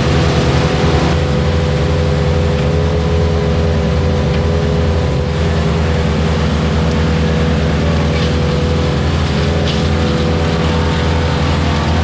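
Ventrac compact tractor's engine running steadily under work, with a steady hum and no change in speed.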